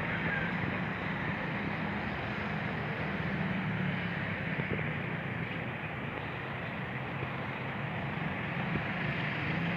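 Steady outdoor street noise: a continuous low rumble and hiss with no breaks, of the kind made by road traffic and moving air.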